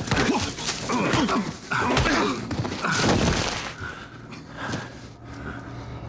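Two men grunting and straining as they grapple in a hand-to-hand fight, with scuffling and blows mixed in. It is busiest and loudest over the first three and a half seconds and eases off after that.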